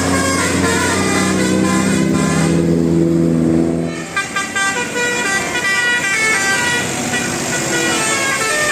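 Bus telolet (basuri) multi-tone horn playing a quick tune of short stepped notes. A steady low tone sounds underneath and stops abruptly about four seconds in, while the tune carries on.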